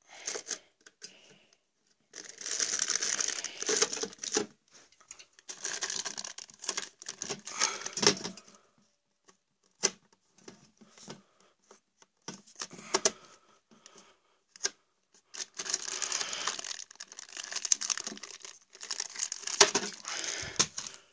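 Plastic packaging being handled and unwrapped, crinkling and rustling in several bursts a few seconds long, with short clicks and knocks between them.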